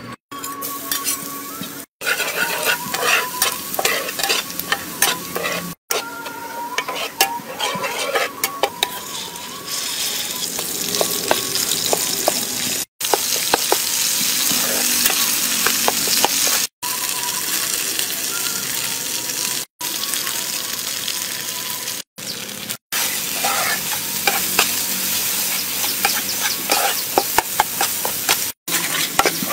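Food with chopped garlic and dried red chillies sizzling in hot oil in a wok, stirred and scraped with a spatula, with many small clicks. The sizzle cuts off for an instant several times.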